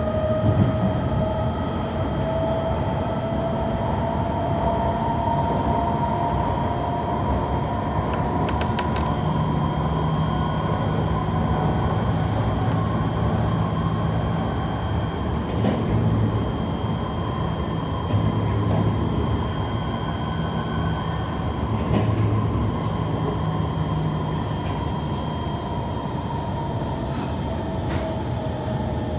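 Inside a moving Kawasaki C151 metro train, a steady rumble of wheels on rail with a two-tone traction motor whine that rises in pitch over the first several seconds, then slowly falls. A few faint clicks come through.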